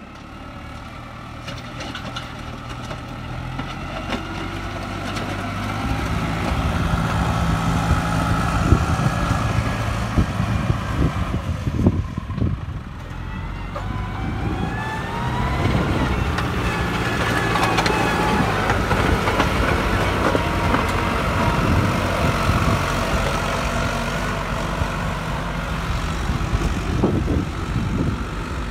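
Farm tractor's diesel engine running under load as it drags a rear-mounted levelling blade across dry, dusty ground, growing louder over the first few seconds. About halfway through the engine pitch rises, and there are a few short knocks.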